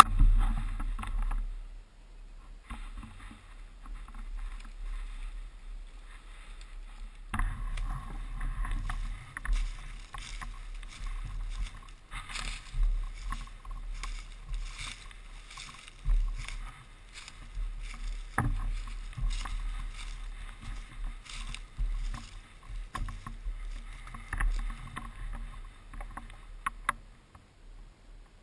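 Irregular rustling and handling noise on a body-worn action camera's microphone as the wearer moves, over a constant low rumble, quieter for the first few seconds and then busier.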